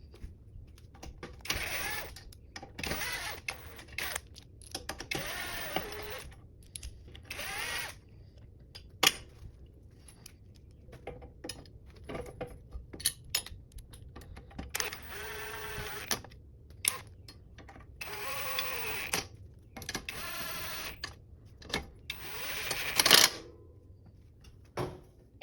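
Tool work on bicycle handlebars: eight or so bursts of mechanical noise, each a second or two long with a wavering pitch, separated by scattered clicks and knocks. A louder knock comes near the end.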